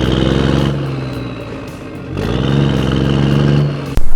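Vehicle engine running, its pitch falling away and then rising again as it is revved about two seconds in, cut off suddenly near the end.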